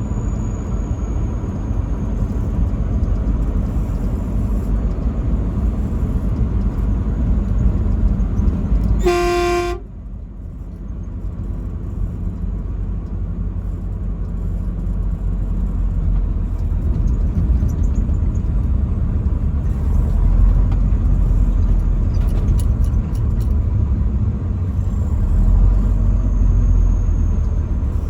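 Truck horn sounding one short, single-pitched blast about nine seconds in, over the steady low rumble of the moving truck.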